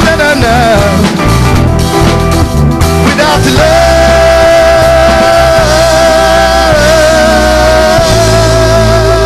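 Live rock band playing: a male lead vocal over drum kit, bass, electric guitars and keyboard. After a few short sung phrases, the singer holds one long high note from about three and a half seconds in, wavering slightly in pitch twice.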